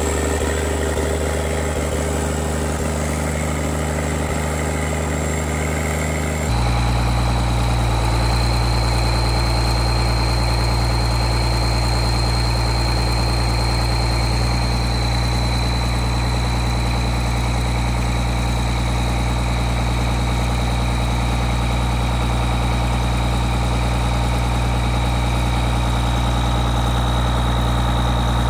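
Case four-wheel-drive tractor's diesel engine running steadily at idle. About six seconds in the sound shifts abruptly and a steady high whine joins the engine.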